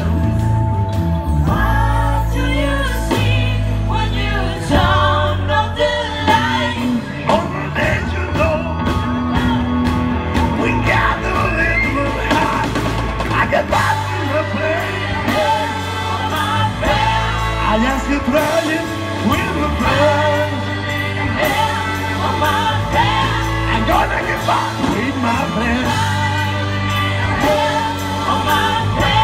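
Live rock band playing a song with a lead singer and backing vocals over electric guitars, bass, drums, keyboard and horns, with a steady beat.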